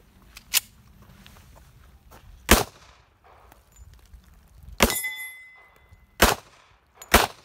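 Pistol shots, about five of them spaced one to two seconds apart. The third, near the middle, is followed by about a second of metallic ringing: a bullet striking a steel target.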